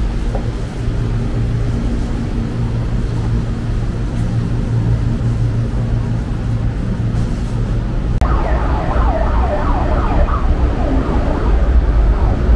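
City street traffic: a steady low rumble of engines. About eight seconds in the sound changes abruptly to a heavier rumble with a rapidly wavering, warbling tone on top.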